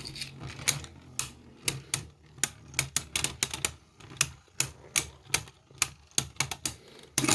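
Two plastic Beyblade spinning tops whirring and clashing in a stadium, giving sharp irregular clicking hits about three or four a second. Near the end there is a sudden louder clatter.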